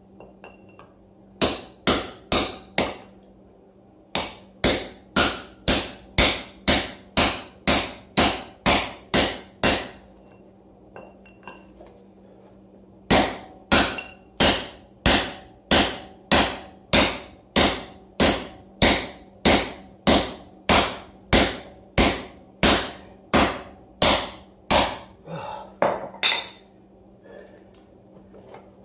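Hammer striking a steel rod held in an anchor hole in a concrete floor: a long run of sharp metal-on-metal blows, about two a second, stopping briefly about three seconds in and for about three seconds near the middle.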